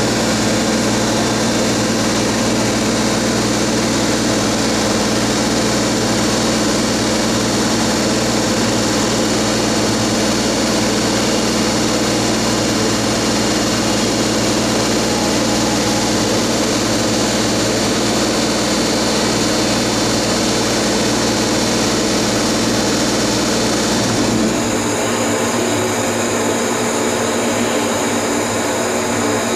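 EF210 electric freight locomotive hauling a container train, running with a steady whine over the noise of the train. The sound shifts about 24 seconds in.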